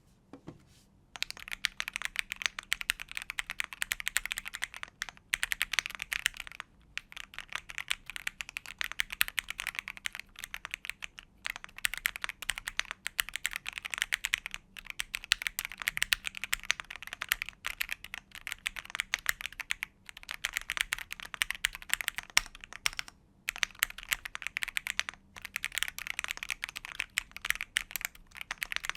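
Typing on a Shark67 65% keyboard with a CNC aluminium case, Strawberry Jelly V5 linear switches and ABS keycaps: a fast stream of keystroke clacks starting about a second in, in runs of several seconds with brief pauses between.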